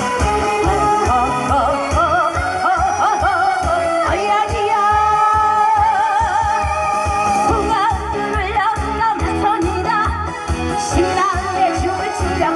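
A woman singing a Korean trot song with a wavering vibrato into a microphone, over a backing track with a steady bass beat, heard through the stage loudspeakers.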